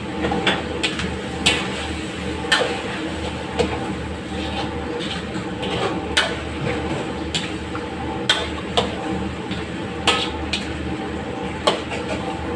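Metal spatula stirring chicken in curry sauce in a steel wok, knocking and scraping against the pan with about a dozen sharp clinks, roughly one a second. A steady low roar runs underneath.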